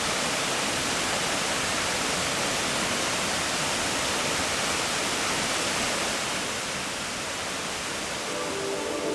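Steady, even rush of water falling at the Fukuroda Falls waterfall. Soft ambient music begins to come in near the end.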